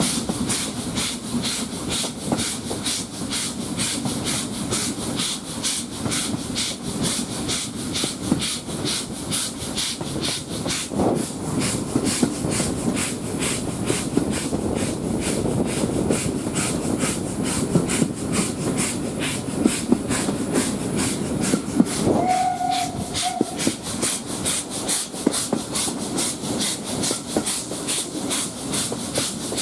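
S&DJR 7F 2-8-0 steam locomotive working a train, its exhaust beats and steam hiss coming back along the coaches in a fast, even rhythm. About three quarters of the way through, its whistle sounds once, a single steady note lasting about a second and a half.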